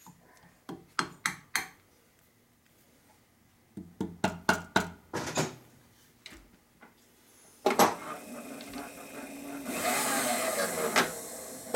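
Light taps from a hand tool against a fixture clamped on a milling machine table, in short clusters, nudging it into line against a dial indicator. Near the end comes one harder knock, then a few seconds of steady scraping whir as the mill table is moved by hand.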